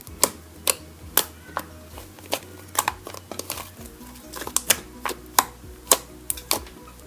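Background music with sustained low notes, over a string of sharp, irregular clicks or pops, about two a second.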